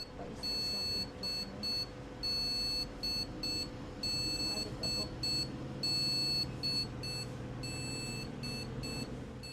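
Desktop PC motherboard speaker sounding a POST error beep code: one long beep followed by three short ones, repeated about four times, over the steady hum of the running computer. This is the computer failing its power-on self-test instead of booting.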